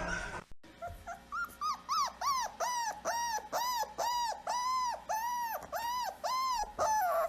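A dog whining in about fifteen short, high cries, each rising and falling in pitch, about two a second. It is the eager whining of a dog expecting a walk.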